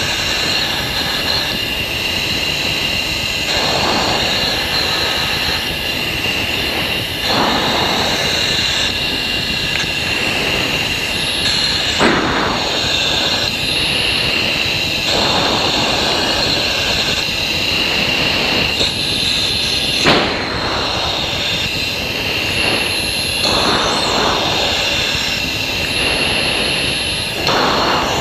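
Steady jet noise inside an F-16 fighter's cockpit in flight. A rushing swell of air comes every three to four seconds over the constant high hiss and whine.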